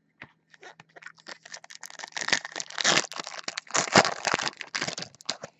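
Foil wrapper of a trading card pack being torn open and crinkled in the hands: a dense run of crackles and sharp snaps that grows busier and louder after about two seconds.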